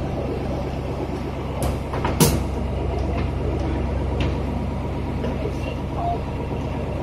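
Boat engine idling steadily, with two sharp knocks about two seconds in.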